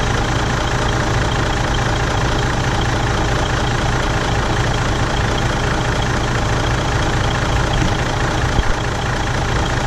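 Air compressor on a diesel railcar running steadily under the idling engine, a low, even mechanical hum. Two short knocks come near the end.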